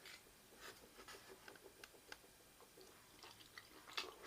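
Faint chewing of a soft, sticky gummy candy: quiet scattered mouth clicks, with one sharper click near the end.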